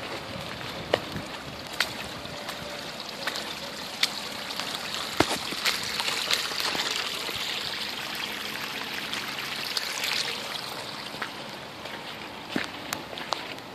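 Floodwater running and trickling across a gravel yard, swelling louder midway, with scattered footsteps crunching on the wet gravel.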